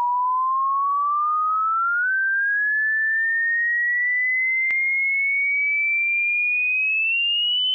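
Hearing-test frequency sweep: a single pure sine tone, steady in loudness, rising slowly and evenly in pitch from a mid whistle to a higher one.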